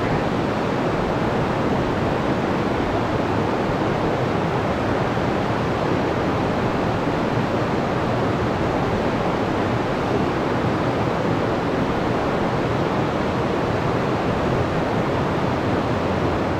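Creek water rushing steadily over rocks in a small riffle, an even, unbroken rush.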